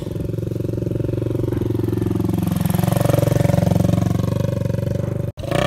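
Small motorbike engine running close by, steady with a short dip and recovery in pitch about three seconds in, cut off abruptly near the end.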